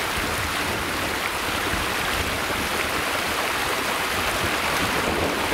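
Small stream pouring over a rock ledge and rushing through a shallow riffle, a steady run of water.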